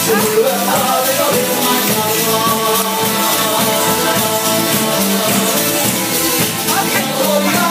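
Live band music with a singer, loud and continuous, with percussion playing through it.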